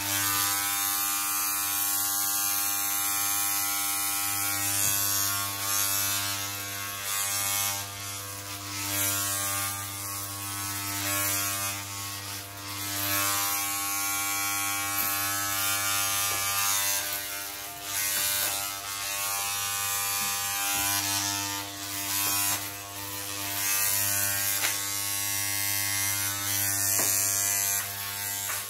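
Corded electric hair clippers buzzing steadily, the loudness and hiss swelling and dipping as the blades are pushed through short hair.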